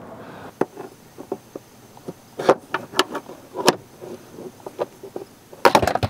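Plastic footwell trim panel of a 2002-2006 Toyota Camry being handled and worked loose: scattered light clicks and knocks of plastic, with a louder clatter near the end.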